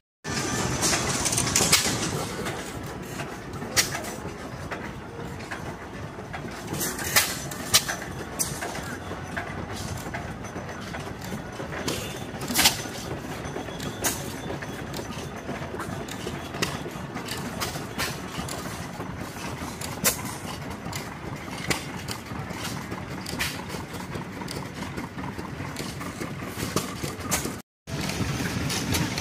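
Antique stationary gas engines running: a steady mechanical rumble broken by sharp exhaust pops at uneven intervals, a few seconds apart. The sound drops out briefly right at the start and again near the end.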